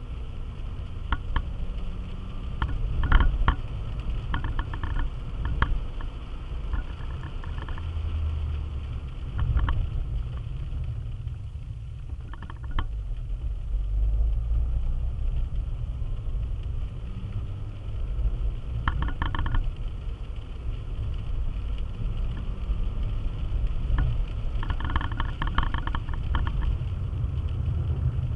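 Car cabin noise while driving on a wet road: a steady low rumble of engine and tyres, with short clicking and rattling sounds every few seconds.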